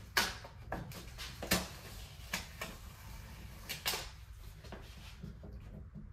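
A protective paper sheet being peeled off a jetboard's deck and handled, giving a string of sharp crackles and rustles that thin out after about four seconds.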